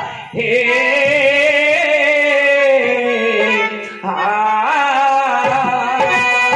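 Devotional singing: a voice holding long, wavering notes in two drawn-out phrases, the second starting about four seconds in, over steady instrumental accompaniment.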